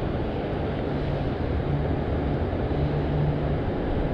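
Steady rush of a shallow mountain creek flowing over rocks, with a low rumble underneath.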